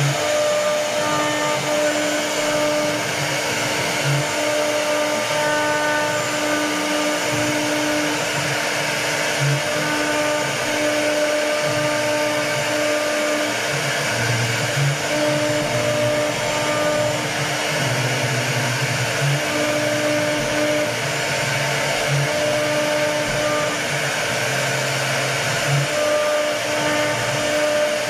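CNC router spindle running steadily while its bit cuts into wood, with short tones that come and go as the cut changes.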